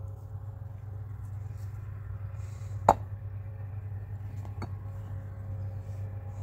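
A single sharp knock about three seconds in and a fainter click a second and a half later, over a steady low hum.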